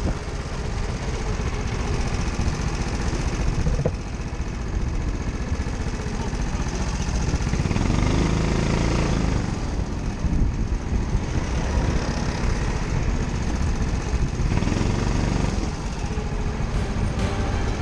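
Rental go-kart's Honda engine running under throttle, heard from the kart itself, its pitch rising and falling with speed through the corners.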